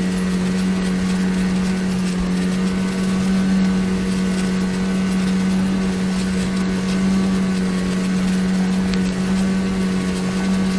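A 9.8 hp outboard motor running steadily at constant speed, a loud, even engine hum with no change in pitch.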